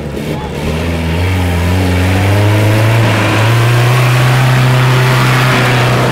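Off-road jeep engine under hard throttle: the revs climb over the first few seconds, then hold steady and high.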